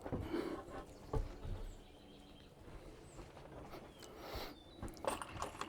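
A few scattered knocks and scrapes from hands-on work on wood and tools, the sharpest about a second in and a noisier clatter near the end, with faint bird chirps behind.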